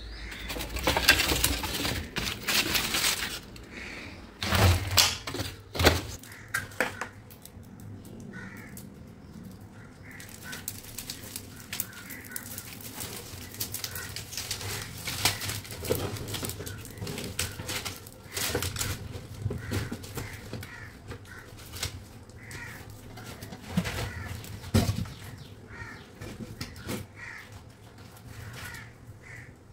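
Crows cawing repeatedly, short calls spread through the stretch. Early on, newspaper rustles and firewood knocks as it is laid into a wood-burning stove. After that come scattered sharp crackles from the wood fire.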